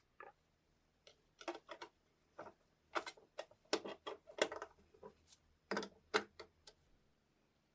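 Irregular clicks and light knocks of small hard parts being handled, about a dozen over some five seconds, stopping shortly before the end.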